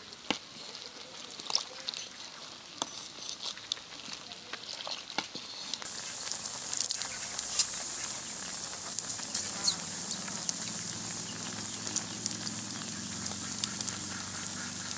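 Fish and taro-stem curry boiling hard in an aluminium pot over a wood fire, with scattered sharp pops and clicks from the boil and from a wooden spatula stirring against the pot; the boil grows louder after about six seconds.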